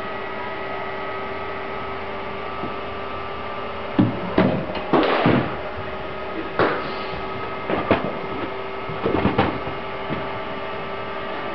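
Indoor cricket net practice. A steady hum runs throughout, and from about four seconds in a run of sharp knocks sounds: a cricket bat striking the ball, and the ball hitting the netting and the floor.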